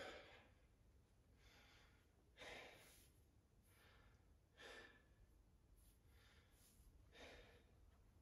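Faint heavy breathing from a man winded by heavy deadlifts: deep, noisy breaths every two seconds or so, with fainter ones in between.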